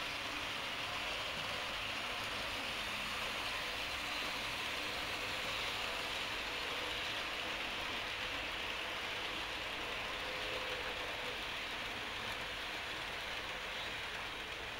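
Model train running along the layout's track, a steady rolling whir and hiss.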